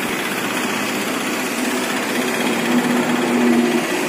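A small engine running steadily, a little louder about three seconds in.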